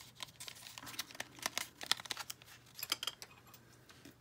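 Thin pink foil wrapper crinkling and tearing as it is picked and peeled open by hand, a run of irregular small crackles.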